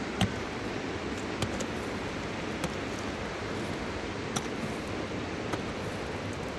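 Steady rush of a fast-flowing river, broken by five short sharp knocks spaced about a second apart.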